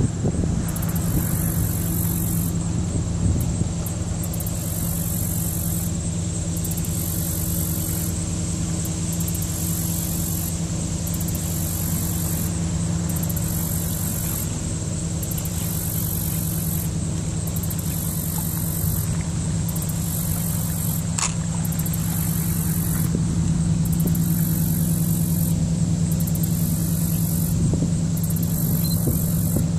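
Steady low drone of a large tanker ship's engines under way: a continuous hum with a few held tones that swells slightly late on, with one brief click about two-thirds of the way through.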